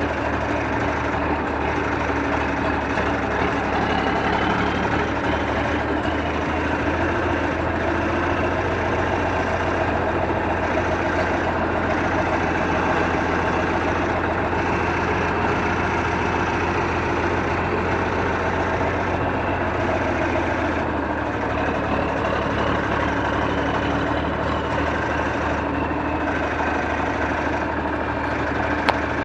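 John Deere 4630 tractor's six-cylinder diesel engine running steadily under load while pulling a loaded water wagon.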